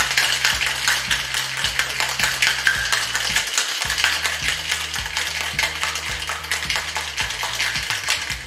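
Ice rattling hard in a metal cocktail shaker being shaken vigorously, a fast continuous clatter of cubes against the tin, over quiet background music.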